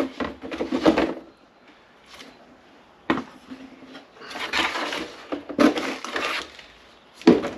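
Cardboard packaging of a grill pedestal mount being handled and slid, in several short rubbing stretches, with knocks as the aluminium pedestal post and its base are taken out and stood on a plastic workbench. One knock comes about three seconds in, and a louder, sharper one comes near the end.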